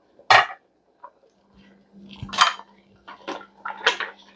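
Cooking pot and utensils clattering: one sharp clank about a third of a second in, then a clatter and a few quicker clinks and scrapes in the second half as the pot's contents are checked and stirred.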